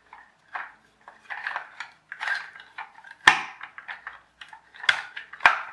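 Hands handling a plastic toy truck while stretching a rubber band around its cab: irregular plastic rattling and rubbing, with two sharp clicks, one about three seconds in and one near the end.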